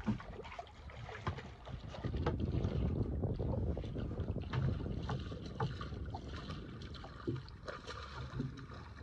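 Wind buffeting the microphone and water slapping against a small boat's hull, a steady low rumble with a few light knocks scattered through it.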